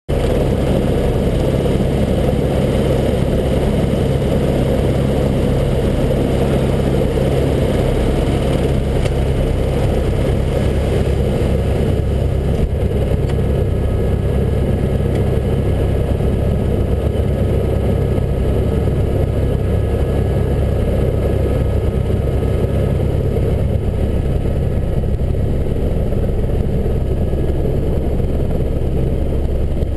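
Helicopter turbine engine and rotor running steadily, heard from inside the cabin: a loud, unbroken drone with a faint steady whine.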